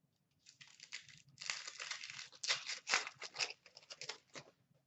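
Wrapper of an Upper Deck Series 1 hockey card pack being torn open and crinkled by hand, a run of crinkling rips that starts about half a second in and stops near the end.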